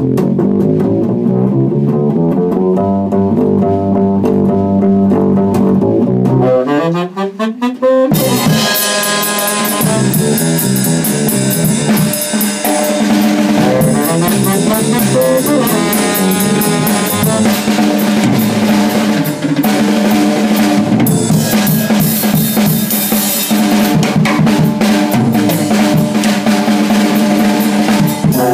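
Small jazz combo playing swing. An upright double bass walks alone at first. About eight seconds in, a saxophone takes the lead and drums with cymbals join, and the full band plays on.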